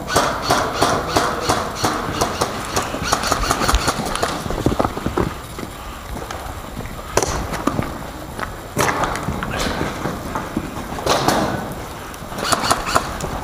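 Quick, rhythmic footsteps of someone running on foot, with a few sharper knocks in the second half.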